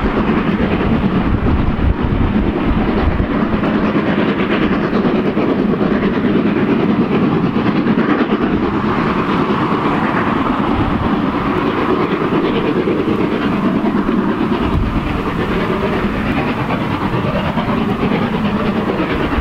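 Steam train running along the line: a steady, unbroken noise of the locomotive and its coaches on the track.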